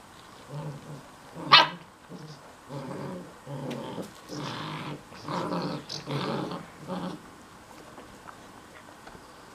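Puppies growling at play-fighting, with one sharp, much louder bark about a second and a half in. A string of short low growls follows and stops a couple of seconds before the end.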